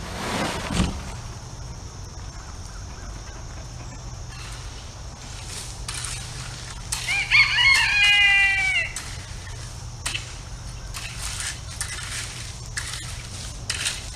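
Rooster crowing once, a loud call about two seconds long in the middle, falling in pitch at its end. A brief scraping crunch comes near the start, with faint scattered clicks afterwards.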